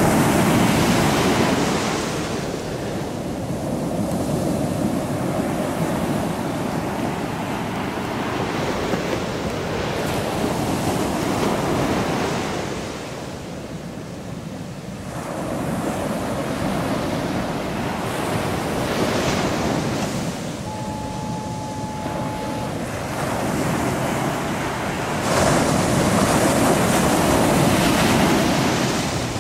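Ocean surf breaking on the beach: a steady wash of waves that swells and eases several times, loudest at the start and near the end. A short, steady tone of about two seconds sounds faintly about two-thirds of the way through.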